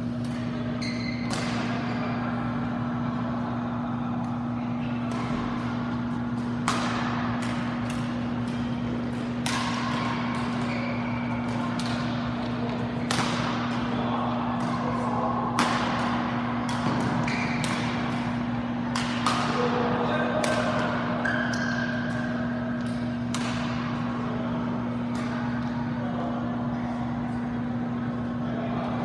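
Badminton rackets striking a shuttlecock, sharp cracks every second or few seconds in rallies, over a steady low hum.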